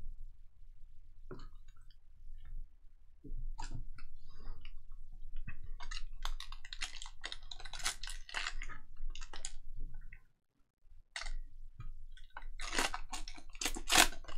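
Foil trading-card pack wrapper crinkling and tearing as it is ripped open by hand: scattered rustles at first, a dense spell of crackling, a brief pause, then the loudest burst of crinkling near the end.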